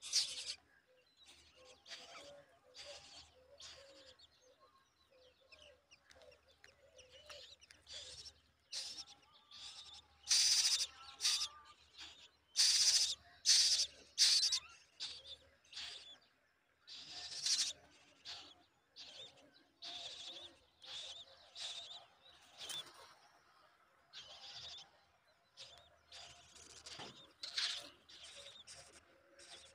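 House crow nestlings begging in the nest: repeated short, hissy calls coming in clusters, loudest around the middle.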